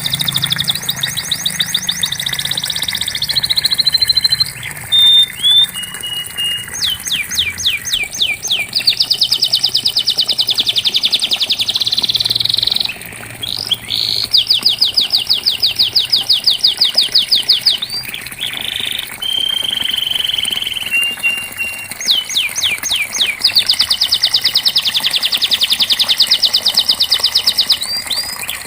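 Domestic canary singing a long song of fast rolling trills and runs of evenly repeated high notes, broken by short held whistles.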